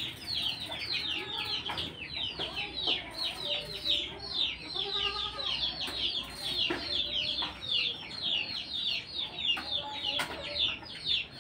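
Chickens calling off-screen: a steady stream of high, falling peeps, several a second, with lower clucking calls now and then.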